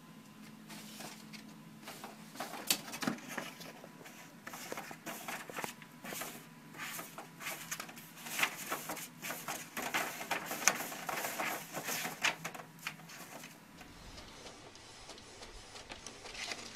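Office printer running a print job: a low hum with irregular clicks and paper rustling as the sheets feed out. It quietens near the end.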